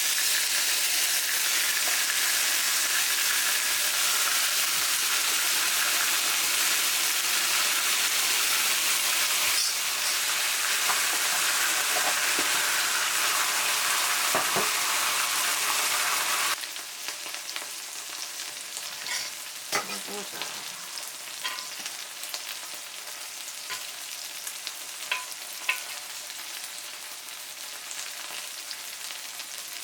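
Food sizzling in a hot pan, a loud, dense sizzle that drops abruptly to a quieter sizzle with scattered pops a little over halfway through.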